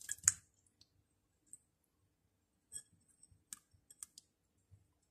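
Pineapple chunks tipped into a pan of fruit salad: a short clatter of clicks at the start, then a few light, scattered clicks and taps.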